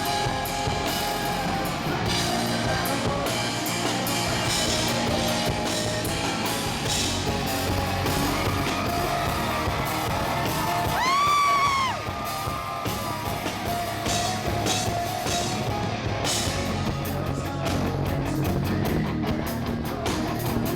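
Live rock band playing, with electric guitar and a drum kit, recorded from the audience. About halfway through, a loud high note rises, is held for about a second, and falls.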